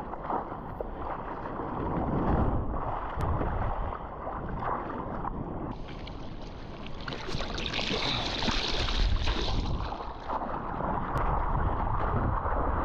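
Sea water rushing and splashing around a surfboard in the surf, with wind buffeting the microphone; a louder, hissing rush of water comes about halfway through.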